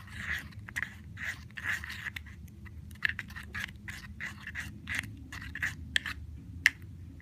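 Homemade shampoo, salt and toothpaste slime being worked by hand: sticky squelching and clicking in quick, irregular bursts.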